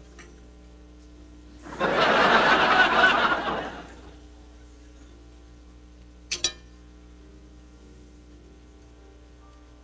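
Studio audience laughing for about two seconds, then two quick clinks of cutlery on a plate.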